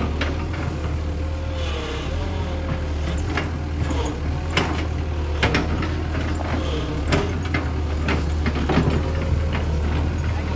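Sumitomo SH120-A3 crawler excavator's diesel engine running steadily as the machine travels, with sharp metallic clanks every second or two.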